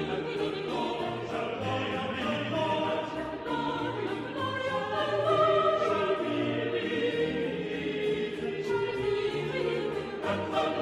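Choral music: a choir singing long held notes over low bass notes, in a classical, sacred style.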